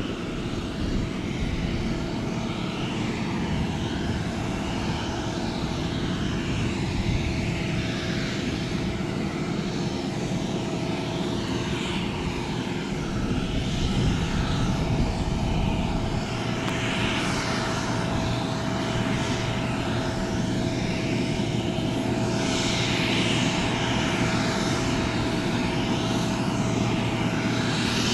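Steady engine drone with a constant whine from a Boeing 777 under tow behind its tug, growing a little louder as it comes slowly closer.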